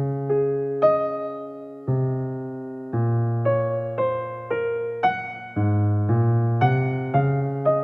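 Background piano music: gentle notes and chords struck one after another, each fading before the next.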